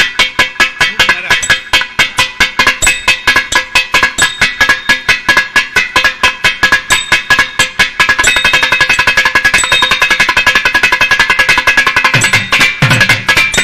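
Thavil drum played solo with a rapid train of sharp, ringing strokes. The strokes grow faster and denser about eight seconds in, and deep booming strokes join near the end.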